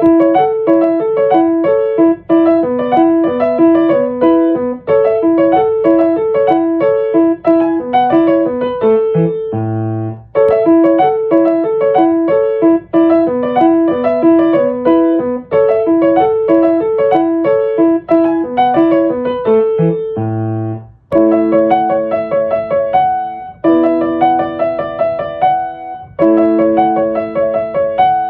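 Solo piano music: a quick repeating figure of notes over short low bass notes, the phrase coming round about every ten seconds, turning to fuller held chords about two-thirds of the way through.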